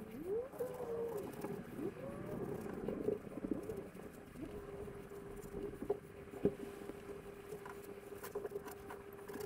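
Quiet rustling and small taps of a thin sheet being handled and pressed onto a panel coated with contact adhesive. A few short low rising and falling tones come in the first two or three seconds, and a faint steady hum starts about four seconds in.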